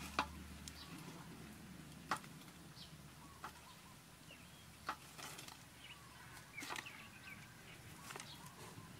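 Faint outdoor ambience: a handful of sharp separate clicks and knocks, with brief bird chirps in between.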